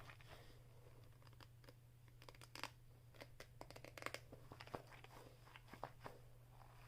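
Faint, irregular crackles and scratches from hands squeezing a Shaggy Nee-Doh, a fuzzy dough-filled stress ball.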